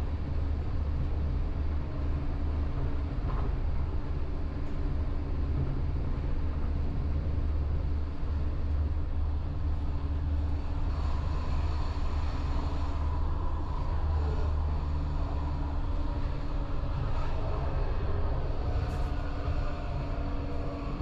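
Passenger train running, heard from inside the carriage: a steady low rumble with a faint steady hum over it.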